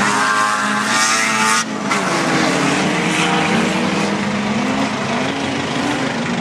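Several autocross race cars of the over-1600 cc class racing on a dirt track, their engines revving hard with notes rising and falling as they shift and pass. One high-revving engine note drops away suddenly about one and a half seconds in.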